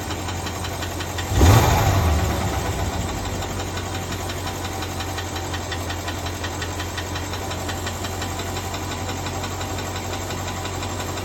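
BMW M550i's twin-turbo V8 idling with a fast, steady ticking clatter heard from underneath the car, whose cause the owner cannot place. A brief louder surge comes about a second and a half in.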